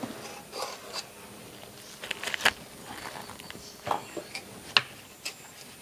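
Knife cutting into the crisp flesh of a ripe bakke-type jackfruit: irregular short crunching clicks and snaps, the sharpest about two and a half and nearly five seconds in.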